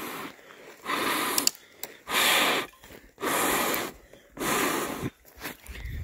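A person blowing hard and repeatedly on a small wood fire to feed it air: four long, forceful blows about a second apart, with quieter breaths between.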